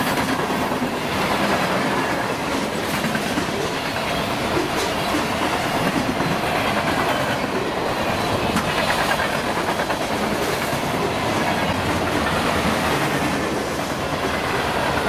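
Freight train of boxcars and refrigerated boxcars rolling past: a steady rumble of steel wheels on rail with occasional clicks.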